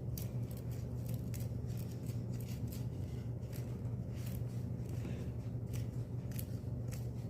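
Chisel cutting into a wooden spoon handle from the second side to open a hole through it: irregular crisp clicks and scrapes of small cuts, over a steady low hum.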